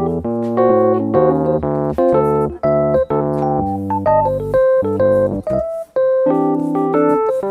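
Background music played on an electronic keyboard with a piano-like sound: a melody over chords, notes changing several times a second.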